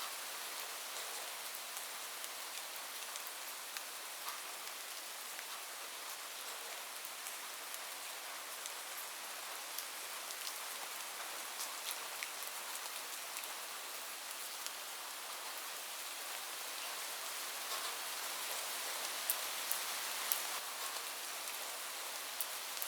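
Steady rain falling on a roof: an even hiss with many sharp drop ticks, a few louder drops near the end.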